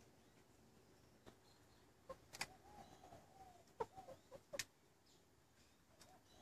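Near silence, with faint short bird calls and a few sharp clicks, the loudest about two and a half seconds in and again near the middle.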